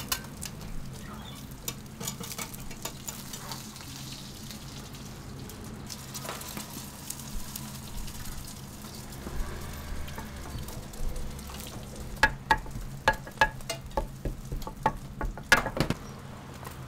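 Millet egg pancake frying and sizzling on a hot griddle, with a metal spatula clinking and scraping against the plate, the clinks coming thick and fast near the end. A steady low hum runs underneath.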